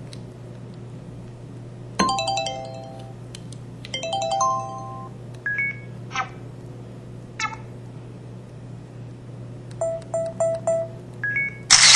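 The MS230 mobile phone's built-in sound effects playing one at a time: short electronic chimes and beep tones separated by pauses, then a quick run of about four short beeps and a louder noisy burst near the end. A steady low hum runs underneath.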